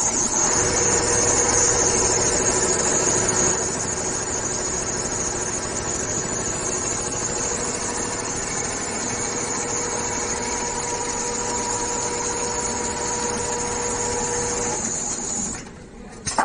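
Richpeace double-head automatic heavy-material sewing machine running a stitching cycle: a steady mechanical sound with a high steady whine. It is slightly quieter after about three and a half seconds and stops about a second before the end.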